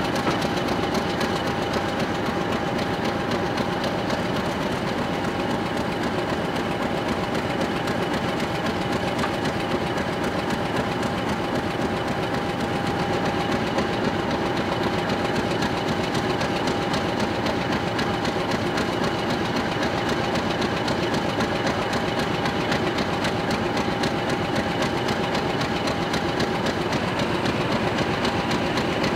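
Class 50 diesel-electric locomotive's English Electric 16CSVT engine idling steadily at a standstill, with a steady high whine running over the engine's rumble.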